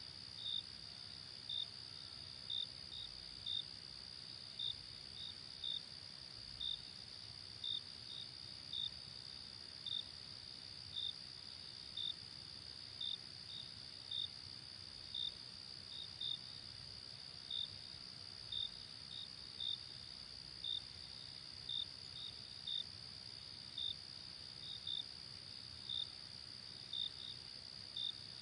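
Crickets chirping at night: short, high chirps repeating about once or twice a second over a steady, high, continuous insect trill.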